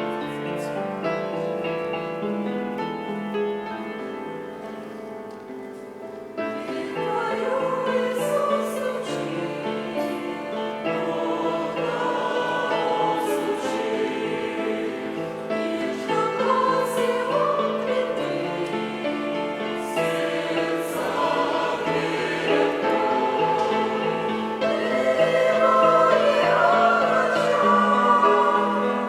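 Church choir singing a Christian hymn with accompaniment. It starts soft with held chords, the voices come in fuller about six seconds in, and the singing grows louder near the end.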